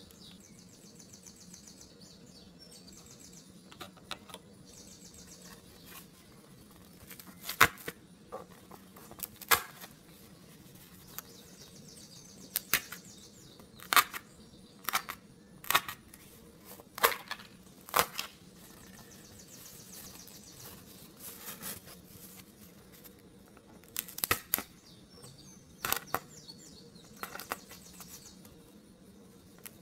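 Pre-cut pieces being pushed out of a cardboard 3D puzzle sheet with a wooden toothpick: an irregular series of sharp snaps and small tearing sounds as the pieces break free.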